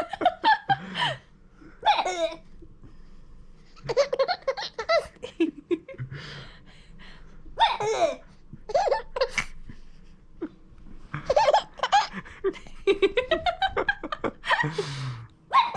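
Baby laughing in about six bouts of giggles and belly laughs, with short pauses between them, in reaction to the mother's coughing and hiccups.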